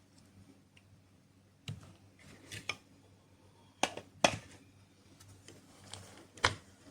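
A handful of separate sharp clicks and knocks, like hard objects being handled, spaced irregularly. The loudest comes about four seconds in, with another strong one near the end.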